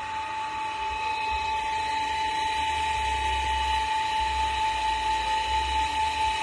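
A chorus of insects droning in the trees: one steady high whine that holds an even pitch, with a shriller layer above it.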